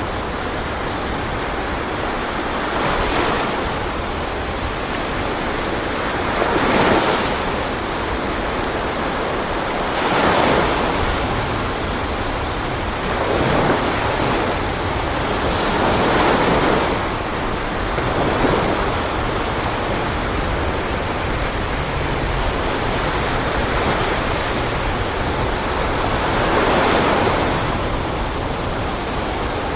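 Sea waves surging and washing, a swell every few seconds over a steady rush of water and wind.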